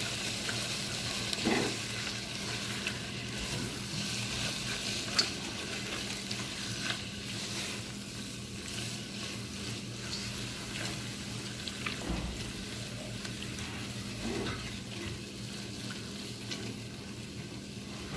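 Chicken pieces being stirred into onion-tomato masala in a frying pan, sizzling steadily, with a few sharp clicks and scrapes of the spoon against the pan.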